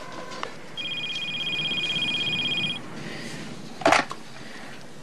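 A desk telephone's electronic ringer trilling for about two seconds, a high steady warble. Just before the end comes a short clatter as the handset is lifted. At the very start a steady two-note phone tone stops about half a second in.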